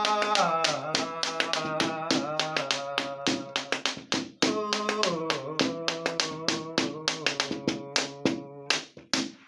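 Instrumental interlude of a song, with no singing: a held melody moving in steps over a quick rhythm of tapped hand-drum strikes. It stops shortly before the end.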